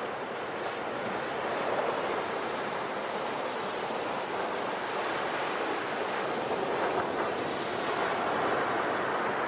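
Sea surf: waves washing continuously onto the shore, a steady rush of water that swells gently a couple of times.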